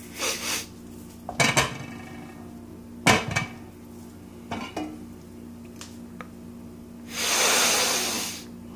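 Glass slow-cooker lid clinking and knocking against the crock pot several times as it is handled and lifted off. About seven seconds in comes a loud, raspy squawk from a squeezed rubber screaming chicken, lasting over a second.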